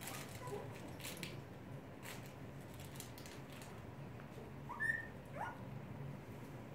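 Young puppies whimpering, with a few short, high squeaks; the loudest comes about five seconds in. A few light clicks are heard too.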